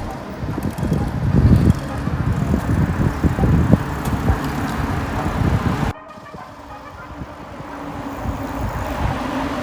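Road traffic with a heavy, uneven low rumble. It cuts off abruptly about six seconds in and comes back quieter, with a steady hum that slowly grows louder.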